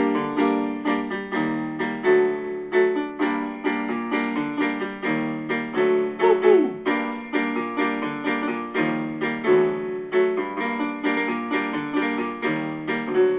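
Donner DEK-610 electronic keyboard played on its piano voice: chords and melody notes struck several times a second, really loud.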